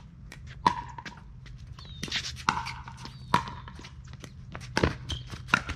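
Pickleball rally: the sharp, hollow pop of paddles hitting the plastic ball, about five or six hits roughly a second apart, each with a brief ringing after it.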